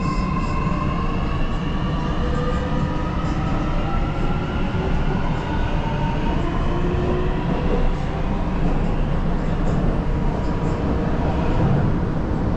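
Metro train running between stations, heard inside the carriage: a steady low rumble of wheels on rail, with the motors' whine rising in pitch over the first few seconds as the train picks up speed.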